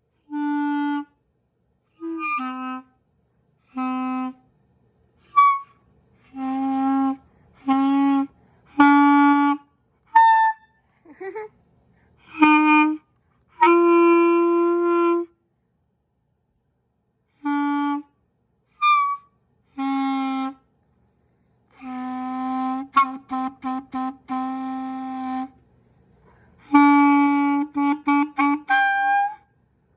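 Clarinet played by a beginner: a string of separate short held notes, mostly on the same low pitch, with pauses between them. A few brief thin high-pitched squeaks come in between, and there are quick choppy tongued notes near the end.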